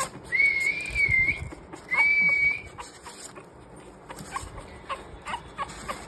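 Pug puppies whining: two long, high-pitched whines in the first three seconds, then short faint squeaks.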